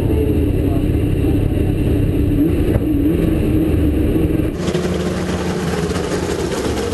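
Holden Commodore V8 Supercar's V8 engine running at low revs, heard first from inside the cockpit and then, after a change about four and a half seconds in, from outside the car, where it sounds as a fast, even pulsing.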